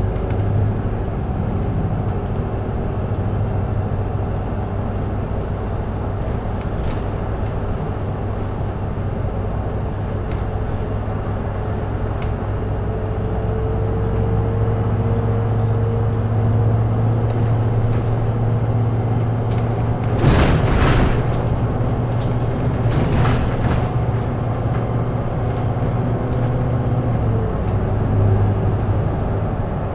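Volvo B7RLE bus under way, heard from inside the cabin: the rear-mounted six-cylinder diesel and driveline give a steady low drone with a whine that rises slightly as the bus gains speed and falls away near the end. About two-thirds of the way through there is a short loud burst of noise, with a smaller one soon after.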